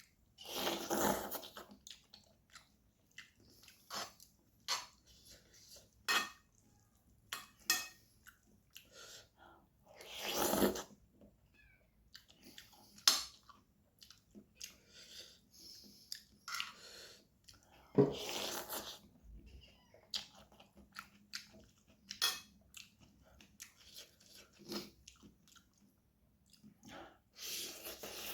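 A person eating spicy noodles, chewing and biting with crunching, with irregular small mouth clicks between, and a longer, louder noisy sound about every eight seconds.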